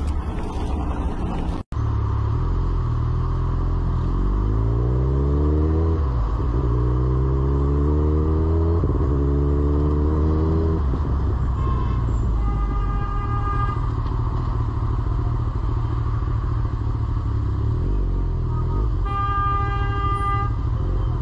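Motorcycle engine pulling hard and running up through the gears: its pitch climbs three times, dropping back at each shift. A vehicle horn then sounds twice, each blast held a second or two.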